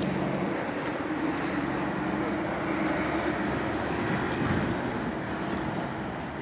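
A motor vehicle's engine drone that swells in about the first second, holds, then fades near the end.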